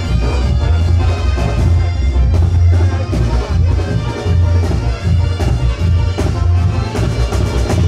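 Tamborazo band playing live, an instrumental passage with brass instruments over a pounding bass drum and snare beat.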